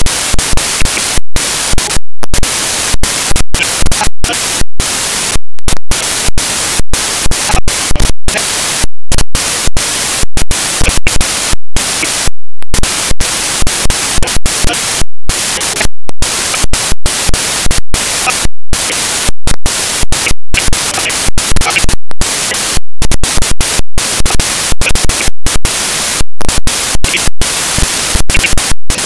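Loud digital static from a corrupted recording: hiss across the whole range, cut by many short, irregular dropouts to silence.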